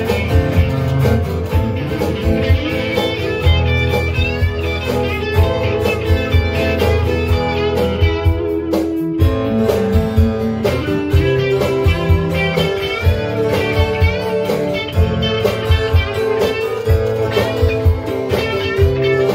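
Band jamming live: electric guitars and a keyboard playing together over a steady beat.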